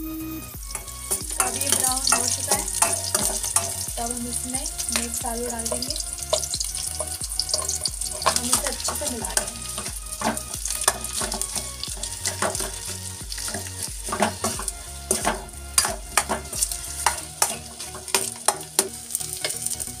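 Mashed boiled potato frying in hot oil in a steel kadhai, sizzling steadily while a steel spoon stirs and scrapes it, with frequent sharp clinks of the spoon against the pan. The sizzle picks up about a second in.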